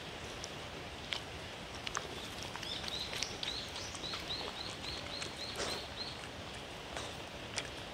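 A dog eating chopped bell pepper and pumpkin from a paper plate: scattered sharp clicks of chewing, licking and nosing the plate. Through the middle, a bird gives a run of a dozen or so short high notes, about four a second, over a steady outdoor hiss.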